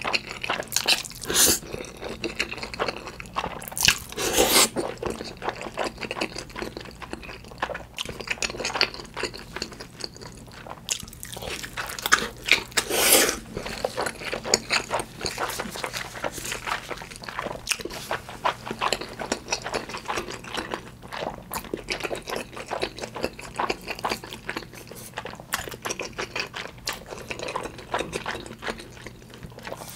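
Close-miked eating of black-bean-sauce instant noodles with spicy tuna and Spam: a steady run of wet chewing and mouth clicks, with a few louder bites, the loudest about 4 and 13 seconds in.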